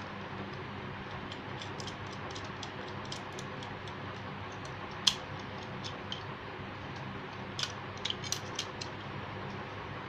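Small metallic clicks and ticks of brass terminal screws and switch parts being handled and fitted on a switchboard, with one sharper click about five seconds in and a quick run of clicks around eight seconds in, over a steady low hum.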